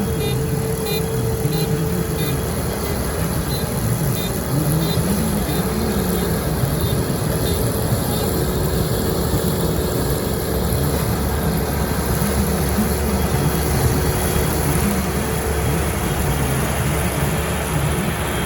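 Engine of a farm machine running steadily, its pitch wavering slightly, over a continuous rumble.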